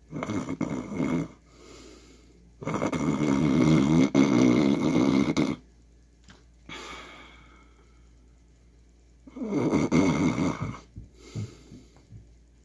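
A man imitating snoring into a close microphone: several snores, the longest about three seconds, separated by quiet gaps.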